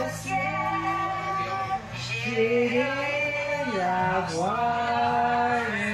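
A woman singing a slow song in long held notes that glide from one pitch to the next, over a steady low tone underneath.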